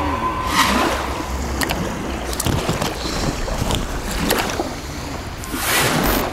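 Wind buffeting the microphone, a steady low rumble that swells in two gusts, one about half a second in and one near the end, with a few light clicks scattered through it.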